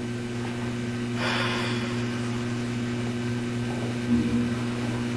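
Steady electrical hum, a low buzz with a few even overtones, with a short hiss about a second in.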